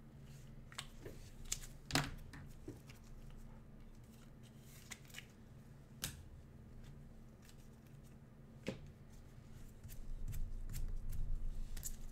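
Trading cards being handled by gloved hands on a table: scattered light clicks and rustles, the loudest about two seconds in. The handling noise gets busier near the end.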